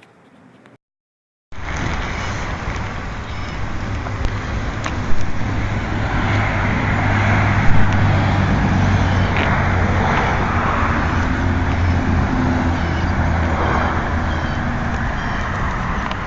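After a brief silence at the start, a motor vehicle's engine runs steadily with road noise, with a couple of sharp clicks along the way.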